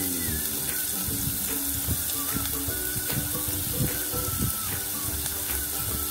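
Chopped red onion sizzling in hot cooking oil in a pan: a steady hiss with many small crackling pops.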